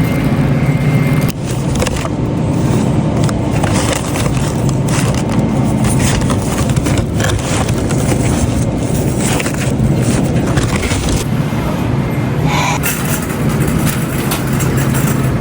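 Car running, a steady low engine and road noise with scattered small clicks and scrapes.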